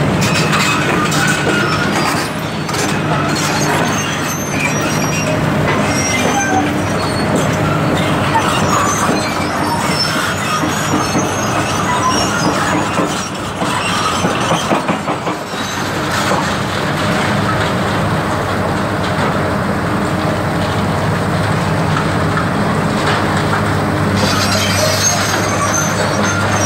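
Demolition excavators' diesel engines running steadily, with short high-pitched metal squeals and scrapes and occasional crunches and knocks of breaking concrete and steel.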